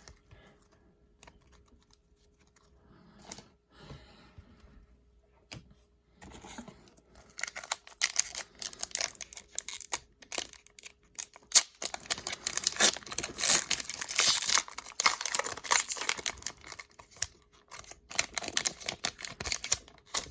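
Hockey card pack being torn open, its wrapper crinkling and tearing in a long run of sharp rustles from about six seconds in, after a few seconds of faint handling.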